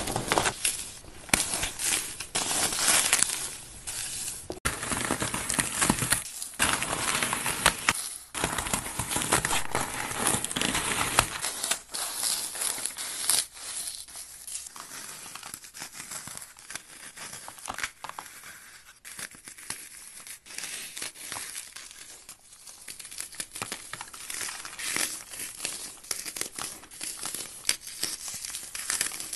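Dry, paste-coated floral foam crushed and crumbled by hand: a dense crunching and crackling, fuller and louder for about the first eleven seconds, then lighter and quieter.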